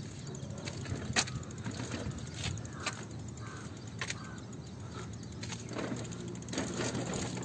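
Faint steady outdoor rumble with a few light, irregular clicks and knocks.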